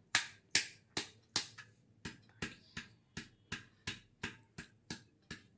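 Bamboo tube being knocked repeatedly, about two to three sharp taps a second, to shake out chicken biryani stuck inside; the taps grow fainter toward the end.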